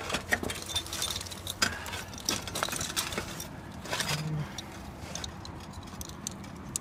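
Small metal clicks and clinks of solar-panel end clamps being handled and fitted onto the mounting rails, a quick run of ticks that thins out after about three and a half seconds.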